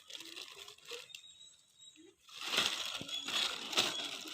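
Plastic packaging crinkling and rustling as it is handled, starting about two seconds in after a few light knocks.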